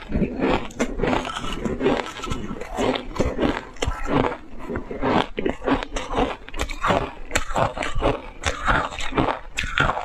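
Shaved ice coated in matcha tea powder crunched and chewed in big bites, close to the microphone: a dense, irregular run of sharp crunches.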